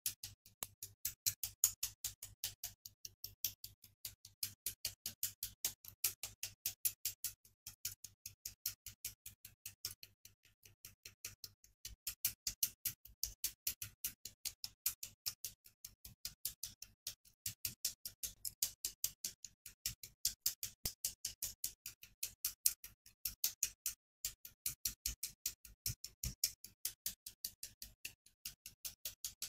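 Hobby side cutters snipping plastic parts off model kit sprues: a rapid, nearly unbroken run of sharp clicks, several a second, with brief pauses now and then.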